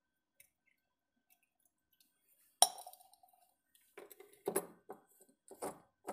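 A single sharp clink with a short metallic ring, as the steel tumbler of distilled water is set down, followed by a run of small irregular clicks and knocks as an orange plastic vent plug is fitted and pressed back into an inverter battery cell.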